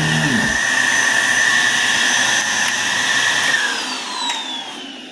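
Bissell Healthy Home second-generation upright vacuum cleaner (model 16N5) running with a steady high whine, then switched off about three and a half seconds in, its motor winding down with a falling whine.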